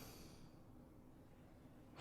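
Near silence in the pause between a sleeping man's snores, with a faint breath fading out in the first half-second.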